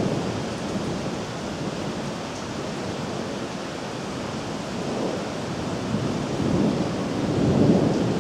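Steady rain during a thunderstorm, with a low rumble of thunder swelling in the last few seconds.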